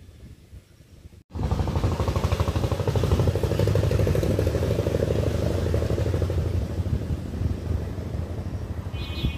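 An engine running steadily with a fast, even pulsing, cutting in suddenly about a second in.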